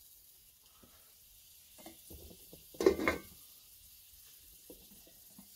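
A metal utensil knocking and scraping in a cooking pot, loudest in a short clatter about three seconds in, with a few lighter knocks near the end, over a faint steady sizzle from the stove.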